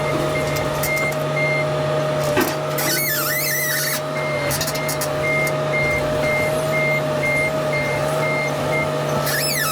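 Heavy equipment engine running steadily while its backup alarm beeps at an even rapid pace. The alarm stops about two and a half seconds in and starts again about five seconds in. A short knock and brief wavering high squeals come between.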